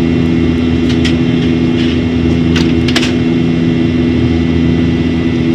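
Steady cabin drone of a Boeing 737-800 in flight: CFM56 turbofan engines and rushing airflow, a loud even roar with a low hum. A few short faint clicks about a second in and again near the three-second mark.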